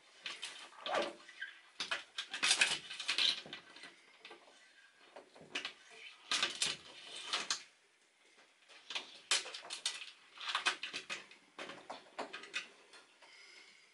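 Metal tweezers clicking and scraping against a thin clear plastic enclosure and raking through loose substrate. The noise comes in several short clusters of clicks and scratches with brief pauses between them.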